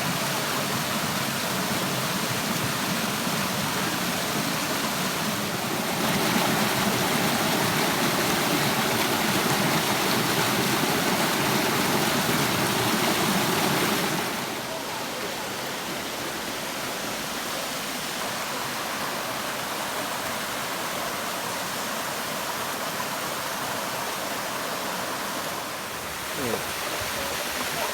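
Water of a low waterfall rushing in a steady, even hiss. It grows louder about a fifth of the way in and drops back to a softer rush about halfway through.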